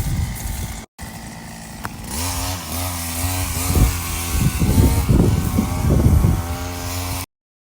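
A small petrol engine of a garden power tool running, its speed rising and falling as it is revved. It cuts off abruptly near the end.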